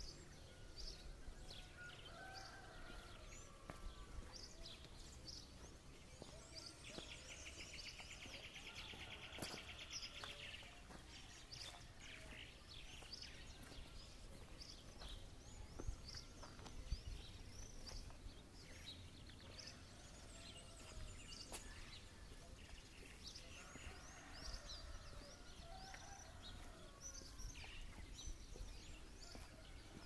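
Quiet open-country ambience: birds chirping and calling, with a rapid buzzy trill about a quarter of the way in, over a steady low rumble.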